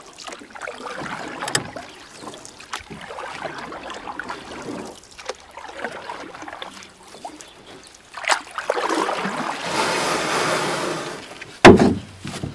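Water splashing and trickling with scattered small knocks, a stretch of louder rushing splash about two-thirds through, and one sharp knock near the end.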